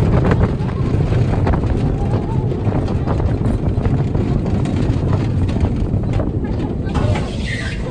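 Bobsled roller coaster car running down its trough: a heavy rolling rumble with rattling clatter, and wind blowing over the microphone.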